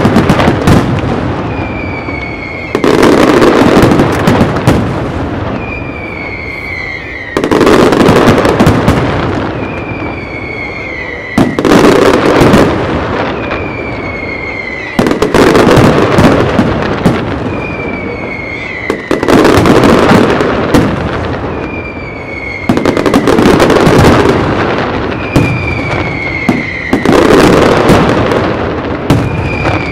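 Professional aerial fireworks display by Pirotecnia Martí. About every four seconds a loud barrage of bangs and crackle starts suddenly, and between barrages a clear whistle falls slightly in pitch.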